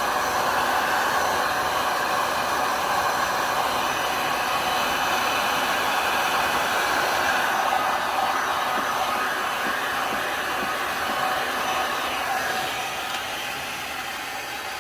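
A handheld hot-air blower runs steadily, pushing hot air over wet alcohol ink to move and dry it. The noise eases slightly near the end.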